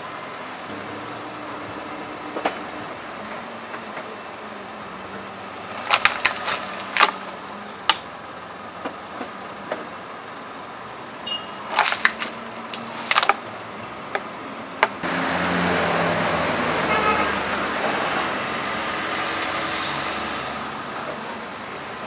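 Empty plastic bottles crackling and cracking as a car tyre rolls onto them and crushes them: clusters of sharp cracks about six seconds in and again around twelve to thirteen seconds, over a low steady background. From about fifteen seconds a steady rushing noise comes up for several seconds, then fades.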